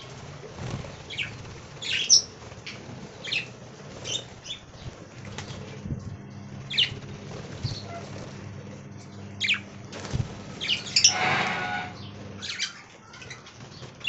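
Budgies chirping in many short, high calls, with a brief noisy rustle of activity about eleven seconds in.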